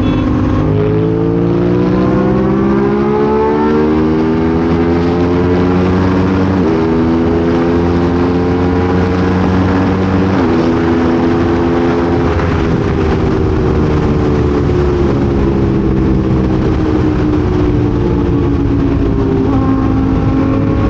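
Motorcycle engine accelerating up through the gears: its pitch climbs and drops back sharply at three upshifts, the first about a second in, then sinks slowly through the second half as the bike rolls off the throttle.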